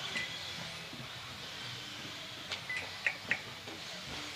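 Radio-controlled 2WD buggies and short course trucks running on an indoor race track, giving a steady high hiss. A few sharp clacks come from the cars between two and a half and three and a half seconds in, and a louder one right at the end.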